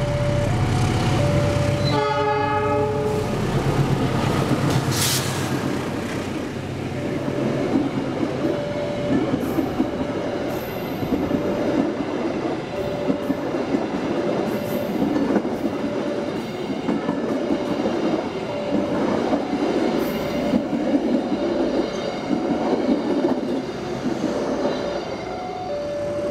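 A train sounds one horn blast about two seconds in, then passes close by with its wheels clattering over the rails. Throughout, a level-crossing alarm sounds a two-note tone that alternates steadily.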